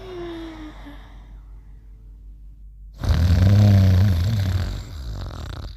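Cartoon snoring. A falling whistle fades out in the first second, then about three seconds in comes a loud, low snore lasting about two seconds.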